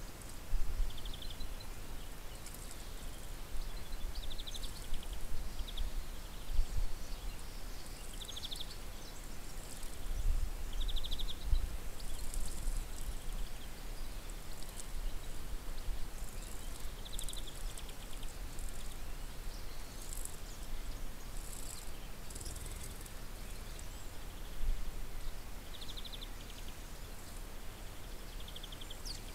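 Small birds giving short, buzzy chirps every second or two, over a gusty low rumble.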